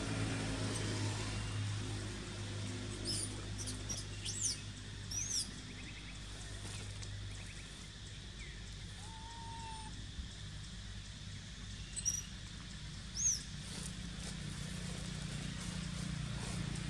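Short, high bird chirps in two quick clusters, a few seconds in and again past the middle, with one lower whistled note between them, over a steady low hum.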